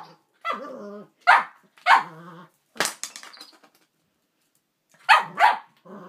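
Cavalier King Charles Spaniel barking and growling in play with a toy: a run of short sharp barks with growls after them, a pause of about a second past the middle, then two quick barks.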